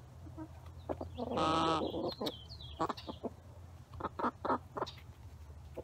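Chickens clucking close by as they peck at bread. About a second in comes one longer drawn-out call, followed by several short clucks.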